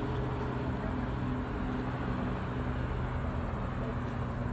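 Steady urban traffic noise: a constant rumble of vehicles with a low, even engine hum underneath, and no single event standing out.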